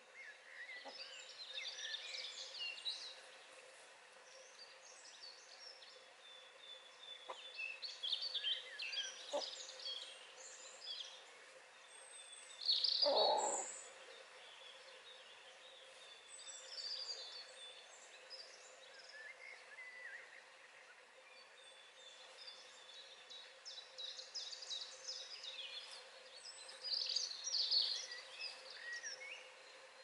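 Wild songbirds singing in several short bursts of high chirping and warbling notes, with one louder, lower-pitched call about thirteen seconds in.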